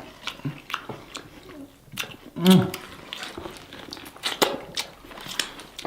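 Close-up eating sounds of seafood being chewed: wet chewing with repeated sharp lip-smacking clicks. A short voice sound comes about two and a half seconds in.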